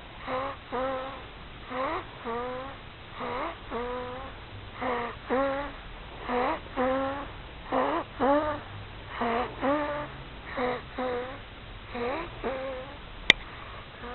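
A one-month-old baby snoring in sleep: a squeaky, pitched two-part sound on every breath, each part rising slightly, repeating about every second and a half. A sharp click near the end.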